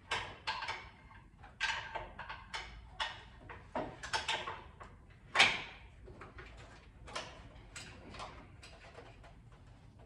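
Irregular knocks and clanks of work on an engine being fitted on a hoist, many in the first half, the loudest about halfway through, then fewer and fainter.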